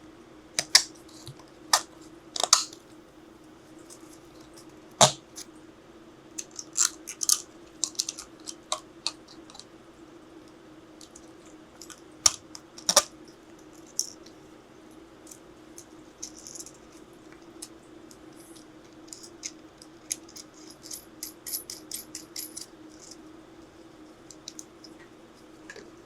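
Hard 3D-printed plastic parts being handled and fitted: scattered sharp clicks and taps, a few of them loud, with a quick run of small ticks late on, over a steady low hum.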